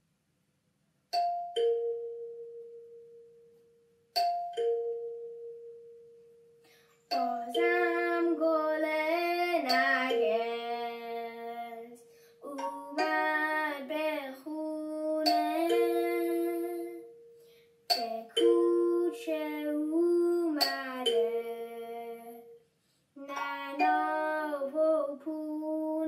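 Acoustic guitar playing the introduction of a Persian Nowruz song: two single plucked notes left to ring out, then from about seven seconds a melody in plucked phrases over a held note, pausing briefly between phrases. Soft singing or humming may blend in with it.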